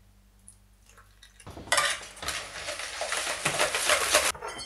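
A wire whisk beating milled potatoes with a little milk in a plastic bowl to make a purée: rapid scraping strokes that start about a second and a half in and stop shortly before the end.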